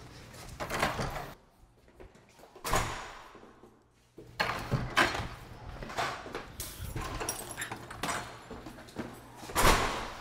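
Apartment front door being opened and closed, with footsteps and knocks around it. The loudest thud comes near the end.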